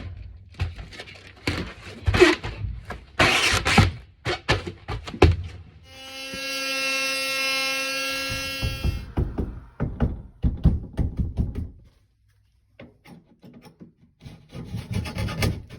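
Tool work on a wall during a shower valve replacement: irregular knocks and taps, with a power tool motor running steadily for about three seconds in the middle, then more knocking.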